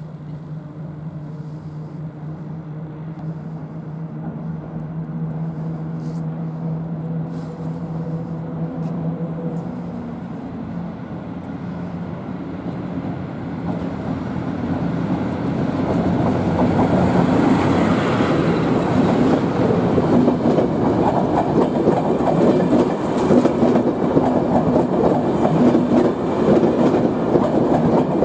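Passenger train approaching and running through a station without stopping. A steady low hum is heard for the first ten seconds or so, then from about halfway the sound swells into a loud rush of wheels on rail with rapid clickety-clack as the coaches pass close by.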